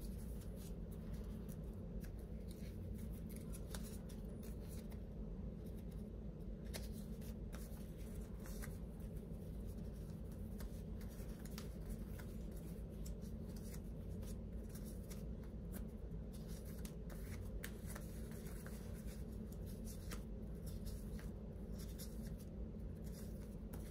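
A stack of thin sticker sheets leafed through one by one by hand: soft paper flicks and rustles, many small clicks spread throughout, over a steady low hum.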